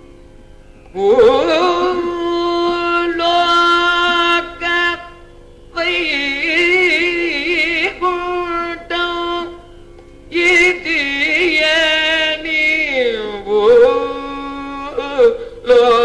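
Solo young male Carnatic vocalist singing long, ornamented phrases with wavering gamakas over a steady drone. The voice comes in about a second in, with short breaths between phrases.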